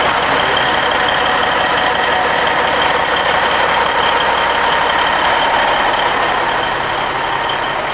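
Caterpillar diesel engine of a 1985 Kenworth K100 cabover idling steadily, heard close up.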